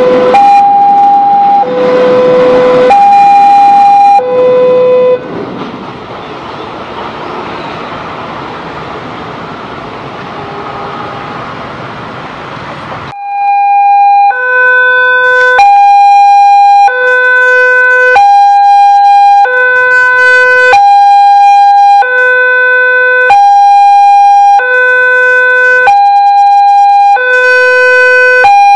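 Railway level-crossing warning alarm of the melodious Daop 8 Surabaya type, alternating a higher and a lower tone, each held a little over a second. From about 5 s to 13 s the alarm drops out under a quieter, even rushing noise of the freight train's wagons rolling past. The noise cuts off suddenly and the two-tone alarm sounds loud again.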